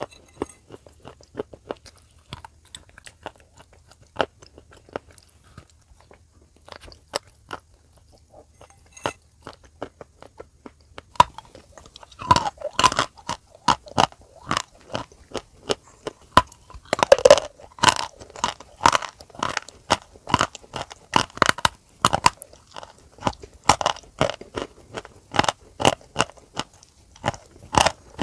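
Close-miked biting and chewing of dry edible clay and chalk chunks, a string of sharp crunches. For about the first eleven seconds the crunches are sparse over a faint low hum, then the hum stops and a denser, louder run of crunches follows, as white chalk chunks are bitten.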